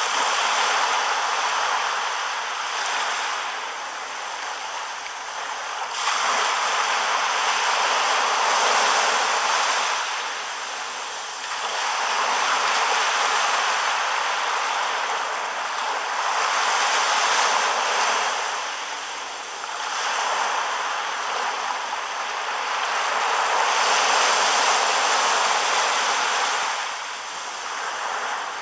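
Sea waves washing up onto a sandy beach in rough weather, the surf noise swelling and ebbing in long surges every few seconds.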